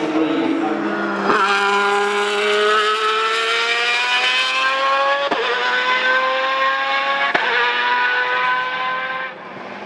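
GT race car engine accelerating hard at full throttle, rising in pitch through the gears with three quick upshifts, about a second, five seconds and seven seconds in. The sound drops away near the end as the car pulls away.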